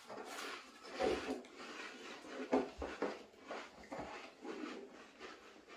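Several people crunching and chewing Pringles crisps fast: an irregular crackle with a few sharper crunches.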